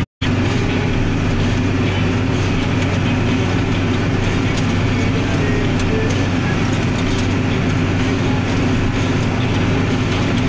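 Massey Ferguson 8280 Xtra tractor's six-cylinder diesel running steadily under load, heard from inside the cab while working a field. The sound drops out for a split second right at the start.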